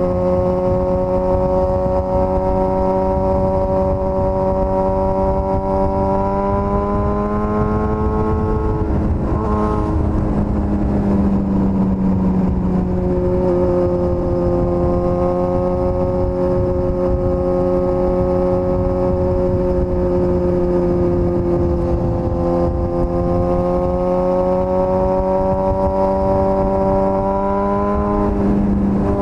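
Suzuki GSX-S1000's inline-four engine pulling steadily under way. The note climbs slowly, breaks off and changes pitch about nine seconds in as it shifts gear, holds steady, then changes pitch sharply again near the end.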